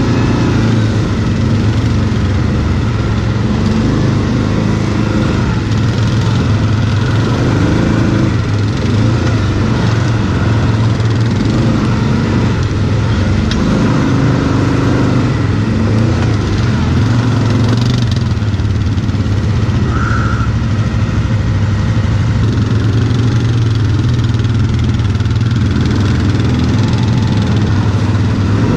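Quad (ATV) engine running loud and steady while being ridden off-road, its note rising and falling with the throttle.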